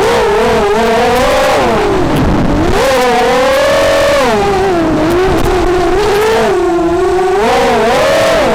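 FPV racing quadcopter's electric motors and propellers whining, the pitch swooping up and down again and again with the throttle, heard from the camera on board.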